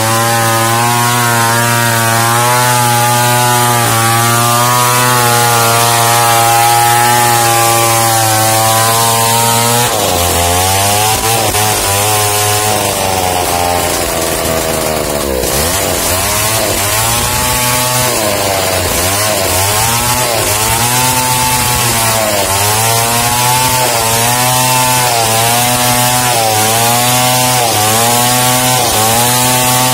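Large two-stroke chainsaw ripping lengthwise through a squared timber, the engine held at a steady high speed under load. About ten seconds in the pitch breaks, and from then on the engine speed repeatedly dips and recovers, roughly once a second.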